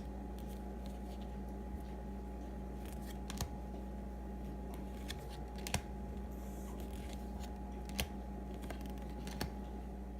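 Baseball trading cards being handled and flipped through, giving a few sparse soft clicks and slides over a steady electrical hum.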